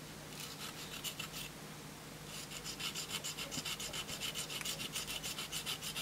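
Diamond file rubbing back and forth over the arc-pitted copper contact on a brake light switch plunger, smoothing it: short, quick scraping strokes, a few in the first second and a half, then a steady run of about five a second from a little after two seconds in.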